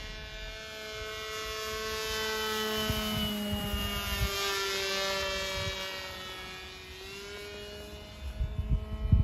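Electric motor and propeller of a large 3D-printed Titan Avenger RC plane whining as it flies past. The whine grows louder, then fades, with its pitch sinking a little as the plane goes by. Wind buffets the microphone near the end.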